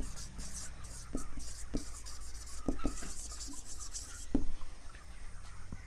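Marker writing on a whiteboard: a run of short, irregular scratchy strokes, with a few light knocks of the pen tip against the board.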